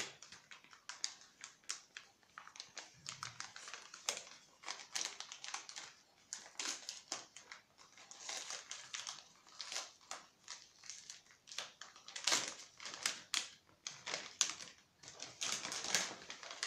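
Paper mailing envelopes and their contents' plastic wrapping being handled and opened by hand: irregular rustling and crinkling made of many short crackles.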